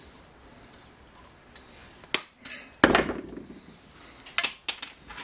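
Metal wire rack clinking and rattling as its legs are worked off by hand: a string of sharp metallic clinks and knocks, the loudest about three seconds in.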